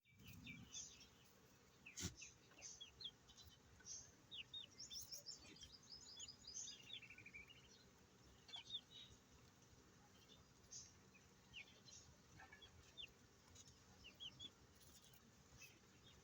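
Young Aseel chicks peeping: many short, high chirps scattered throughout, with a quick run of falling chirps about five seconds in. A single sharp knock about two seconds in.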